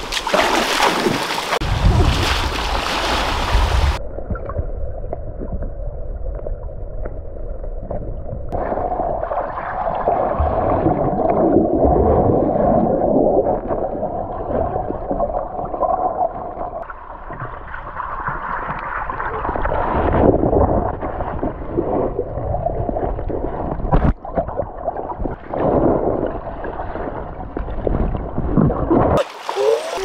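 River water splashing at the surface for a few seconds, then the muffled, gurgling sound of water heard from a camera held under the river's surface, with one sharp knock about three quarters of the way through.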